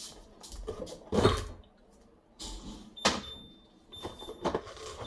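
Groceries being handled and put away in a refrigerator: a few separate knocks and rustles, the loudest about a second in, and a sharp clink about three seconds in that rings briefly.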